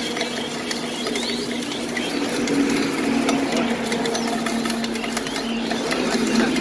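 Jhal muri being shaken in a hand-covered steel mixing tumbler: puffed rice and chanachur rattling fast and without a break against the metal, over a steady hum.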